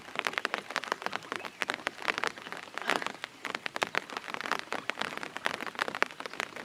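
Rain falling in large, scattered drops: a steady pattering of sharp separate drop hits, several a second.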